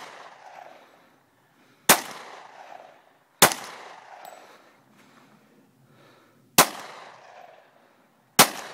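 Four gunshots, spaced about one and a half to three seconds apart, each followed by a short echo that dies away within about a second.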